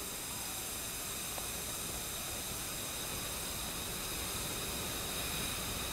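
Steady hiss of breath blown hard through a drinking straw, held without a break: a sustained ten-second abdominal-breathing exercise.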